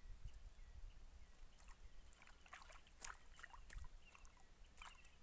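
Near-silent open-air ambience: a faint low wind rumble and faint chirps repeating every few tenths of a second. From about a second and a half in come scattered soft crackles and clicks.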